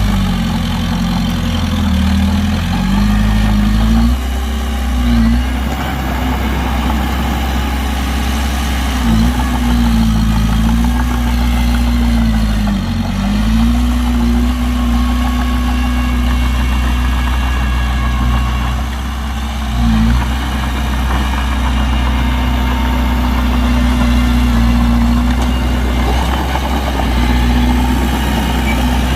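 Heavy diesel engine running steadily with a deep rumble. Its engine speed dips briefly and climbs back several times, notably a few seconds in, again through the middle, and once more about two-thirds through.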